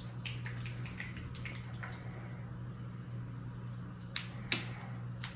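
Light clicks and taps from a plastic acrylic-paint bottle and a ceramic planter being handled on a tabletop, with two sharper clicks about four seconds in, over a steady low hum.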